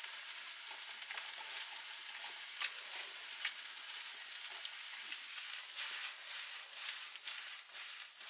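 Vegetable chow mein noodles frying in a steel wok over a wood fire: a steady sizzle as they are stirred, with scattered sharp clicks.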